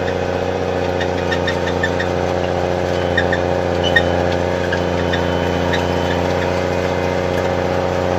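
Snowcat engine running steadily, with a few faint ticks and squeaks scattered over it.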